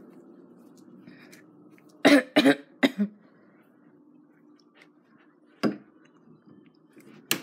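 A person coughing four times in quick succession about two seconds in, with two more short sharp sounds later, over a faint low hum.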